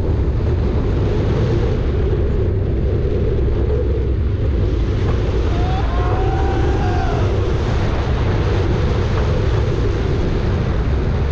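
Steel roller coaster heard from the moving train: a loud, steady rush of wind buffeting the microphone over the rumble of the wheels on the track. A faint wavering tone rises and falls about six seconds in.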